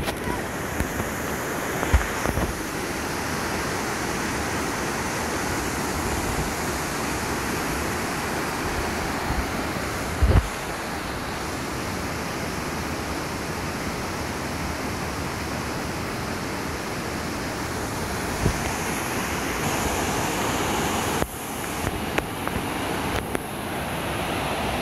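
Fast-flowing stream rushing steadily, with a couple of brief low thumps about two and ten seconds in.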